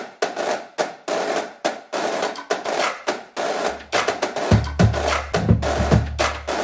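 Intro music with a drum beat of sharp snare-like hits; a deep bass comes in about four seconds in.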